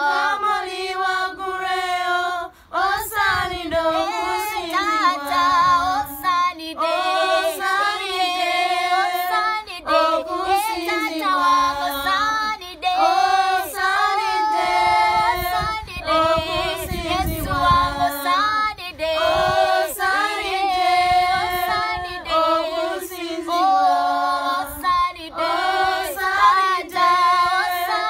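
A young girl singing a worship song in a clear, open voice, with long held notes and gliding melody lines over a steady lower held note.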